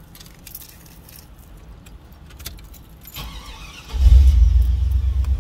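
A car engine starting: a rattle of keys and starter noise a little after three seconds in, then the engine catches about four seconds in and runs with a steady low rumble.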